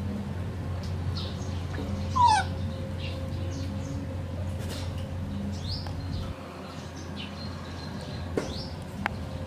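A short animal squeal gliding down in pitch about two seconds in, over a steady low hum that drops away later on. Faint high chirps recur, and two small clicks come near the end.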